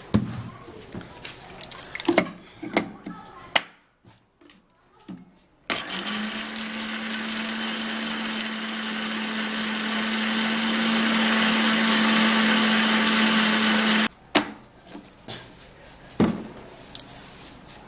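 Electric blender grinding alligator pepper, running steadily for about eight seconds with a constant hum and getting slightly louder, then cutting off suddenly. Clicks and knocks of the jar and lid being handled come before and after.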